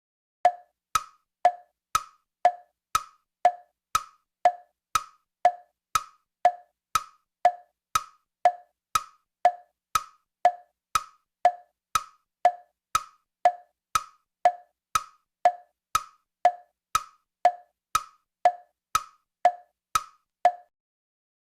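Hollow wooden knocks in a steady tick-tock rhythm, two a second, alternating a higher and a lower pitch, like a wood block or a clock-tick sound effect; they stop about a second before the end.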